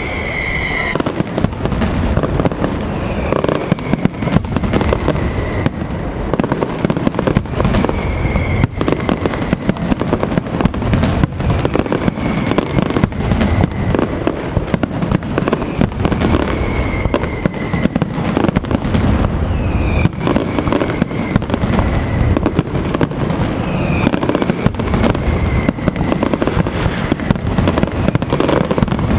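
Aerial fireworks going off in a dense barrage of rapid bangs and crackles, with whistles every few seconds that fall slightly in pitch.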